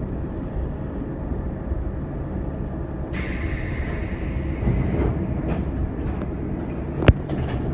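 415 series electric train running, heard from inside the front of the train: a steady low rumble, a hiss for about two seconds midway, and a sharp clack of the wheels over a rail joint near the end.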